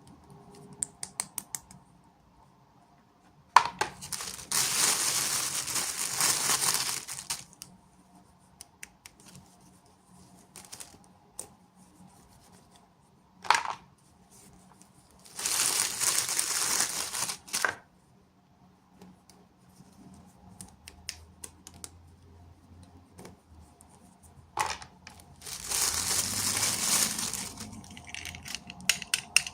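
Plastic wrapping and packaging being crinkled and torn open in three long spells, with small clicks and taps of plastic pieces in between.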